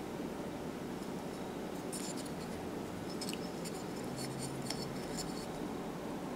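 Faint clicks and light scraping of two small wooden blocks being handled and turned in the fingers, scattered from about two to five and a half seconds in, over a steady low hum.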